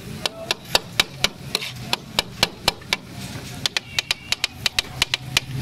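Takatak: metal spatulas striking a flat metal griddle (tawa) as chicken liver and onions are chopped on it, a rhythmic run of sharp metallic clacks at about four a second, with a short pause about three seconds in and then a quicker run.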